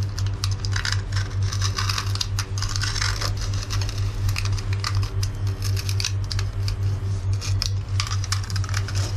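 A utility knife blade cutting along the edge of old silicone sealant around a mirror: a run of short, uneven scratching clicks. A steady low hum runs underneath.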